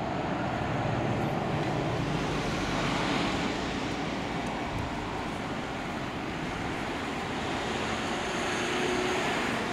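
Passing city road traffic, steady tyre and engine noise. A touring coach goes by at the start, then cars and taxis, and the noise swells again near the end as a van passes.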